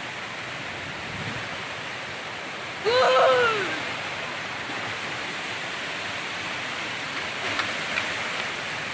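Mountain river rushing over rocks, a steady noisy roar of fast water. About three seconds in, a person's short loud call cuts across it, rising then falling in pitch.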